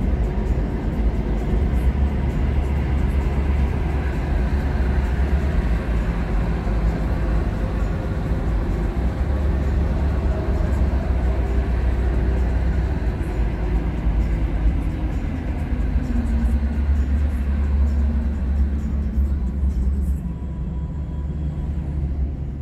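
Ford Excursion's 6.8-litre V10 running under way with a deep, steady drone and road noise. About halfway through its pitch sinks gradually as the revs drop, and near the end the sound gets somewhat quieter.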